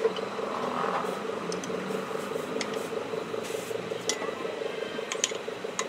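Light splashing of water and occasional small metal clicks as engine parts are washed by hand in a shallow pan, over a steady background hum.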